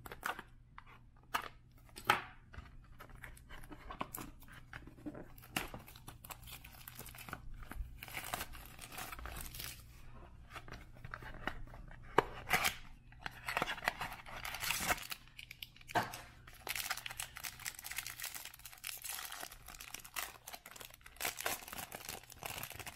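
Packaging of a trading-card box being torn open and crinkled by hand, a long run of tearing and crackling broken by many sharp snaps and clicks, the loudest about two, twelve and sixteen seconds in.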